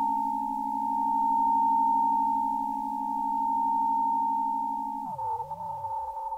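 Electronic music synthesized in Kyma: a steady high tone near 1 kHz held over a lower, rapidly pulsing tone, swelling slowly in loudness twice. About five seconds in, the held tones break into sliding, wavering pitches.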